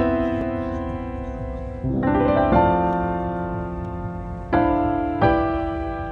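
Background piano music: chords struck every second or two, each ringing out and fading before the next.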